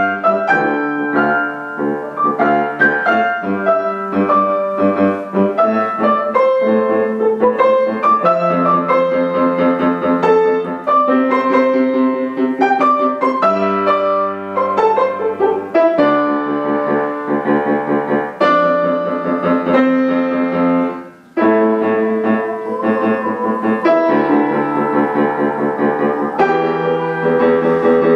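Grand piano played solo: quick, continuous runs of notes, with a brief break about 21 seconds in before the playing resumes.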